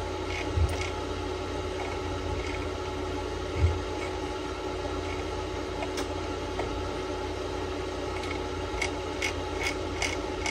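Cooling fan of a modified Power Mac G4 Cube running steadily close to the microphone: an even hum with several steady tones. A few faint clicks and two soft low thumps sound over it.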